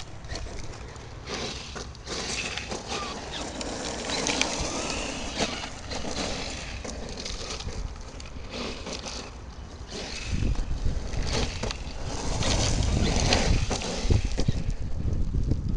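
Brushless electric RC monster truck running on rough ground: motor whine rising and falling under tyre and gravel noise, with wind buffeting the microphone, heavier from about two-thirds of the way in.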